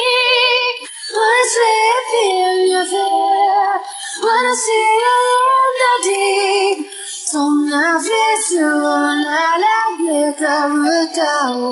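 Music: a high female voice singing a song in Japanese, with one line in English, holding notes with vibrato between short breaks for breath.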